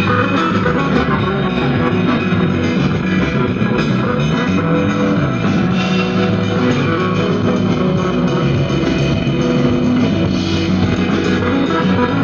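A song with guitar and drums played loud and steady through a single-channel mono amplifier board with 5200 output transistors and its speaker, as a sound test at full volume.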